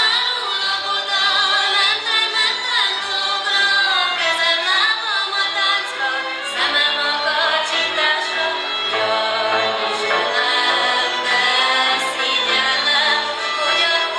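Hungarian folk dance music from Szilágyság: a group of voices sings a melody together over a bass line.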